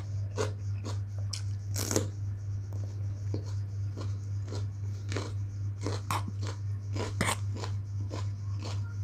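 Close-up mouth sounds of a man chewing a raw fat green chili (cabe gendut): uneven crisp crunches about twice a second over a steady low hum.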